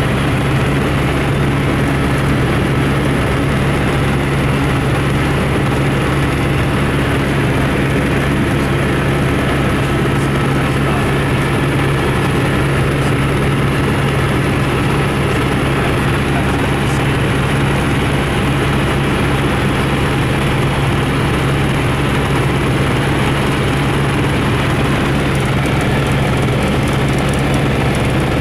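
Light aircraft's engine and propeller running at a steady cruise, a loud unbroken drone with a low hum, heard from a camera on board the aircraft in flight.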